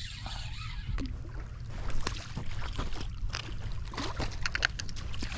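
A hooked fish splashing and thrashing at the water's surface as it is reeled in close to the bank, over a steady rumble of wind on the microphone and scattered clicks from handling the rod and reel.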